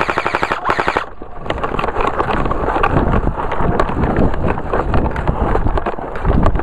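Airsoft M4 rifle firing a full-auto burst of rapid, evenly spaced shots that stops about a second in, followed by rustling brush and irregular clatter as the shooter moves through vegetation.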